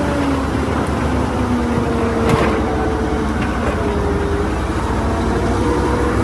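Steady, loud engine-like running noise with a low wavering hum, like a heavy vehicle idling.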